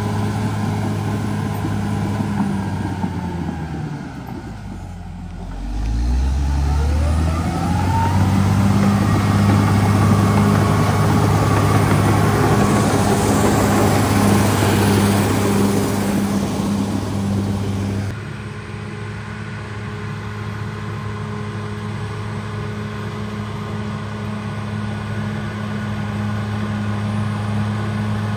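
Caterpillar D6R XL bulldozer's diesel engine running under load while pushing soil. Its pitch sags about four seconds in and climbs back up as it revs again. About two-thirds of the way through it drops abruptly to a quieter, steady running.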